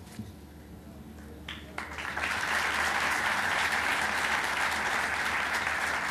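Audience applause in a hall, rising in about two seconds in and then holding steady. Before it there are a few faint knocks in a quiet room.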